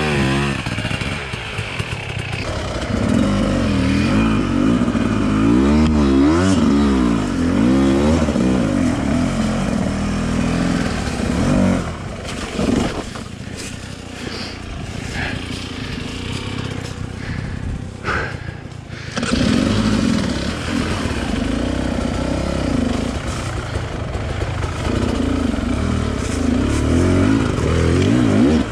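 Enduro dirt bike engine revving up and down under load, its pitch rising and falling again and again. Around the middle it drops to quieter running for several seconds with a few knocks, then pulls hard again.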